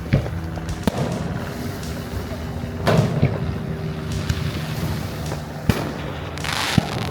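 Fireworks going off: about five sharp bangs spaced one to three seconds apart, over a steady hum of crowd and street noise.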